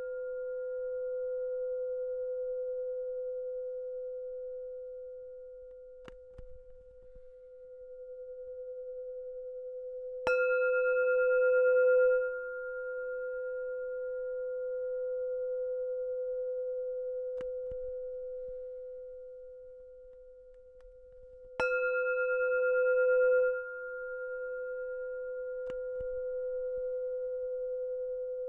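Singing bowl struck twice, about eleven seconds apart, each strike ringing on in a long hum that slowly swells and fades between strikes.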